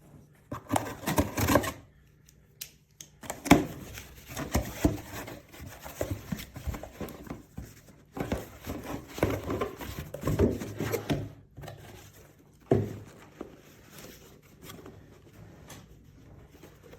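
Product packaging being handled and opened: irregular clicks, taps and rustling in a few loud clusters, then softer handling near the end.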